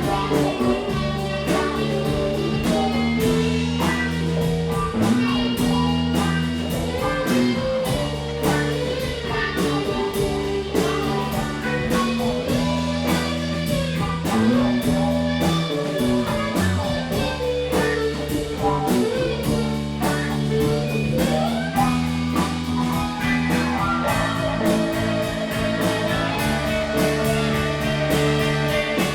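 Live blues-rock band playing an instrumental passage. A slide guitar glides between notes over electric lead guitar, bass guitar and a drum kit keeping a steady beat.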